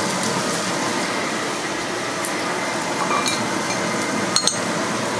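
Steady hiss of pork and potatoes braising in a wok over a gas burner, with two sharp clicks of chopsticks against a porcelain bowl about four seconds in.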